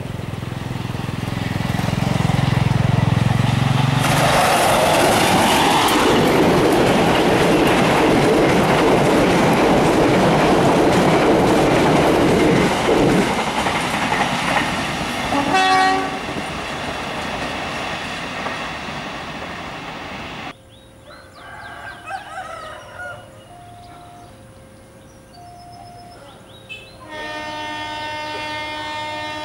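A diesel-hauled passenger train passes close by: a low locomotive engine rumble, then a long steady rush and clatter of coaches and wheels on the rails, with a short horn blast partway through. After a sudden drop to a quieter, more distant scene, a diesel locomotive's air horn sounds steadily near the end.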